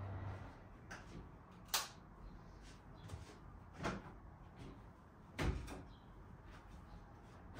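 Household knocks and clacks, like cupboard doors or drawers being shut: a sharp clack nearly two seconds in, a knock near four seconds and a heavier thud about five and a half seconds in, with lighter clicks between.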